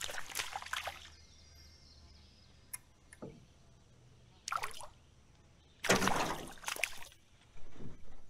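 Water splashing in several short bursts, the loudest about six seconds in.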